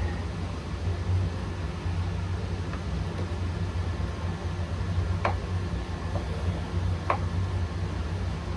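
A few sharp, light clicks of tools and small parts being handled while the saw is put back together, three in all, over a steady low hum.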